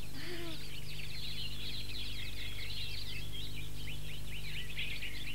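Many small birds chirping at once, a dense chorus of quick high chirps, over a steady low hum.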